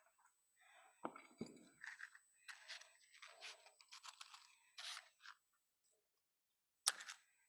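Faint handling sounds as a pillar candle in its holder is set down on a cloth-covered table: two soft knocks about a second in, then a string of short scrapes and rustles, and a single sharp click near the end.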